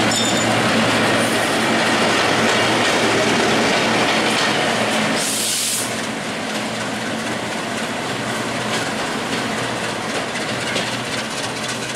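Diesel locomotive engine running close by with a steady hum. About five seconds in comes a brief hiss. After that the sound drops to a lower rumble as a locomotive rolls slowly along the track, with light clicks from the wheels.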